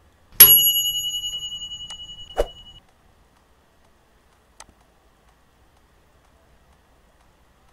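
A bell-like metallic ring: a sudden loud ding whose high tones die away over about two seconds with a fast flutter, like an alarm-clock bell. Near its end comes a short pop, and a faint click follows a couple of seconds later.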